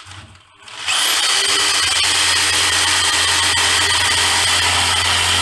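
DeWalt corded jigsaw starting about a second in, quickly spinning up and then running steadily at full speed, its blade cutting into a wooden pallet board.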